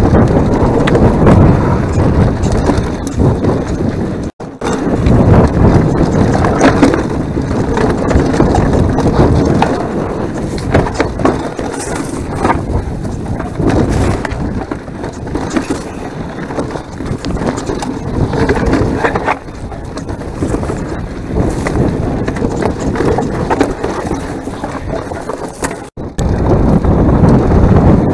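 Mountain bike riding down a rough enduro trail, picked up by a bare chest-mounted action camera: tyres crunching over rock and dirt, the bike rattling, with wind buffeting the microphone. The noise drops out for a split second twice, about four seconds in and near the end.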